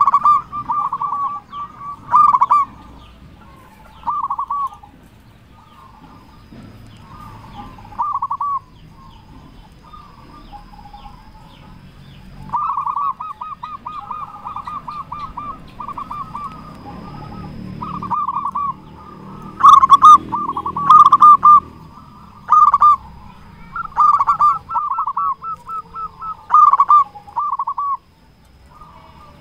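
Zebra dove (perkutut) singing over and over: short phrases of staccato coos, some running into fast rolling trills, loudest in the second half.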